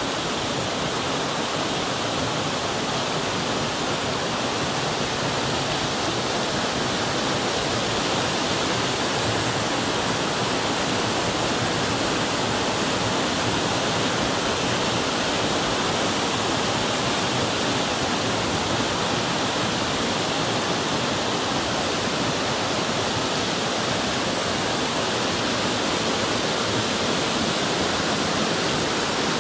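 Waterfall pouring down a rock cliff and splashing into the sea, heard close up as a steady rush.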